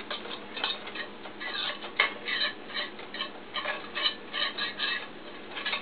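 A utensil clicking and scraping against a stainless steel skillet in quick, irregular taps as butter is pushed around the pan.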